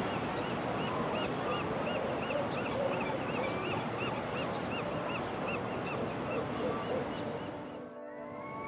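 Song sparrow calling a steady series of short, identical notes, about three a second, stopping about seven seconds in, over a constant background rush.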